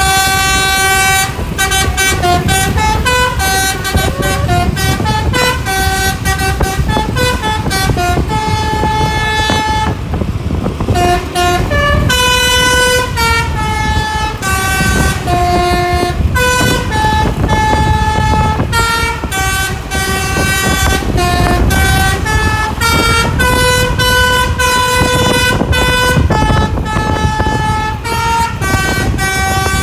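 Bus telolet horn of the Basuri "pianika" type playing a tune: a run of horn notes, some held and some quick, stepping up and down in pitch, with a short break about ten seconds in. Low engine and road rumble runs underneath.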